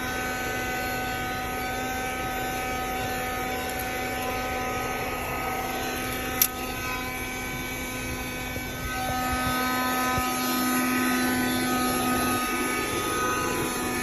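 Small motor of a 1973 Dynamic battery-powered handheld car vacuum running steadily with a whine. There is a single sharp click about six seconds in, and it gets slightly louder and changes tone around nine to ten seconds in.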